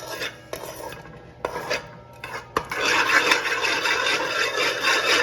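A few light clicks and knocks of kitchen utensils, then from about three seconds in a spoon stirring and scraping steadily in a pot.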